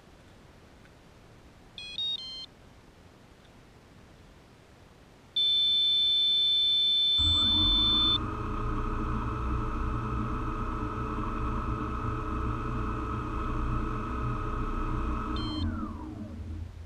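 Quadcopter sitting on the ground: a few short electronic beeps, then a long loud beep about five seconds in. The electric motors then spin up and run steadily at low speed for about eight seconds, and after a short beep they wind down with a falling whine.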